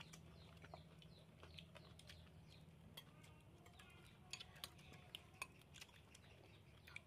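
Faint clinks and scrapes of metal spoons against ceramic plates and soup bowls while eating, a few sharp clinks coming close together about four to five seconds in.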